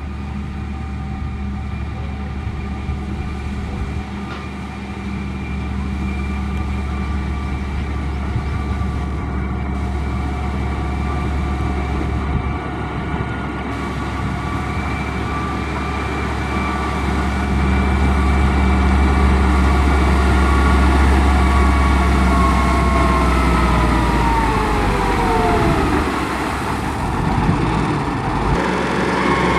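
Heavy diesel engine of a motor grader running steadily under load with a low rumble. Near the end its pitch drops as the engine slows, then begins to climb again.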